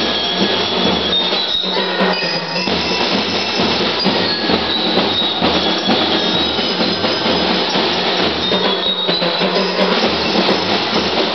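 Drum and lyre corps playing: bell lyres ringing high metallic notes over a steady drum beat.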